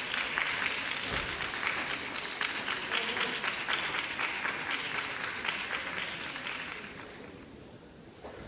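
Audience applauding a karate team's kata, many hands clapping at once, dying away near the end.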